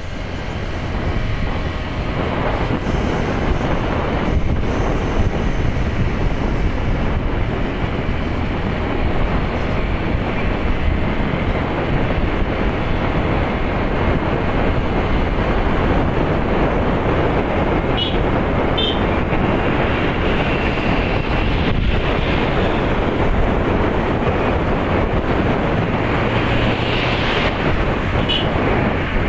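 Steady rush of wind buffeting the microphone over the road and engine noise of a moving vehicle. A few brief high chirps come about two-thirds of the way in and again near the end.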